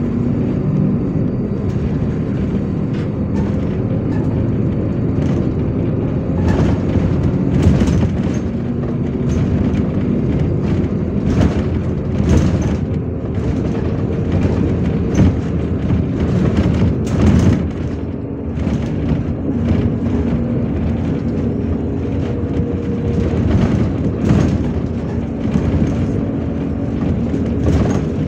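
Inside a MAZ-103 low-floor diesel city bus on the move: the engine and road noise run steadily, the engine's pitch shifting a little, with irregular knocks and clatters from the body throughout.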